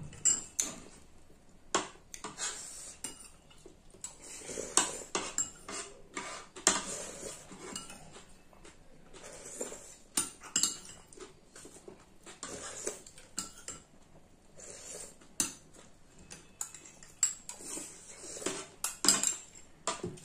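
Metal spoons clinking and scraping against porcelain bowls and plates in irregular taps, with the sounds of people eating between them.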